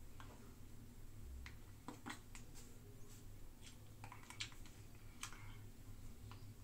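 About a dozen faint, irregular clicks and soft taps of a person signing, as hands and fingers meet and brush against each other, over a low steady hum.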